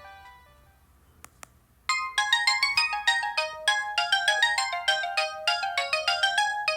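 Samsung GT-E1205T ringtones: the last notes of one ringtone die away, two short clicks follow in the gap, then about two seconds in the next ringtone starts suddenly, a fast melody of bright pitched notes.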